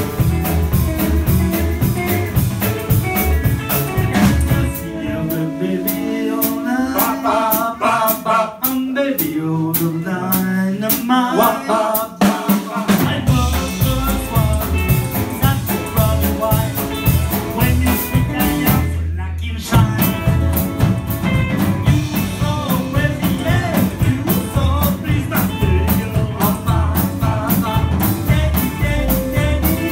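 Live rock 'n' roll band playing: upright bass, drums, acoustic and electric guitars, with a singer. About five seconds in the bass drops out for several seconds while the higher parts carry on, and there is a short break about nineteen seconds in before the full band comes back.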